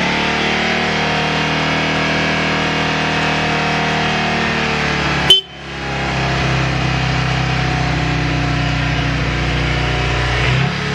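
Kawasaki Vulcan 400 Drifter's V-twin engine idling steadily, just after starting. One sharp click about five seconds in, after which the engine sound briefly drops away and comes back.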